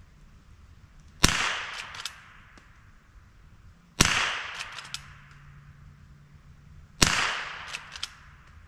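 Three rifle shots from a Henry H001 lever-action .22 LR firing CCI subsonic rounds, about three seconds apart. Each is a sharp crack with an echo trailing off for about a second, followed by a few smaller clicks.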